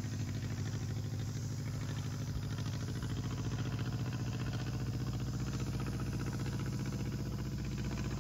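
Pietenpol light aircraft's piston engine and propeller droning steadily overhead.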